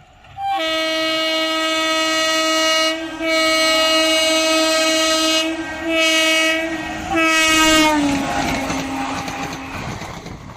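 Electric locomotive horn sounding a two-note chord in four blasts, two long then two short, followed by the rumble of the train running past, fading away.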